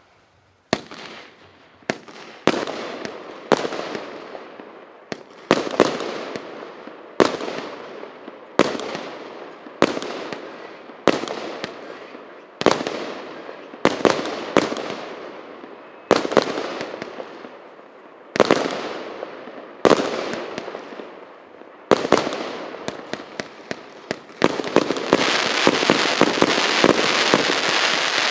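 Russian Fireworks P8380 'Golden Reserve' firework cake, a 272-shot battery of 0.6-, 1- and 1.25-inch tubes, firing: a sharp bang about every second to second and a half, each trailing off over about a second. About 24 seconds in it speeds up into a rapid string of shots over continuous crackling.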